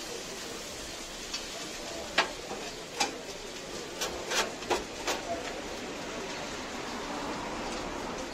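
Metal spatula knocking and scraping against a steel grill tray as chopped kokoreç is turned, several sharp clacks between about two and five seconds in, over a steady background noise.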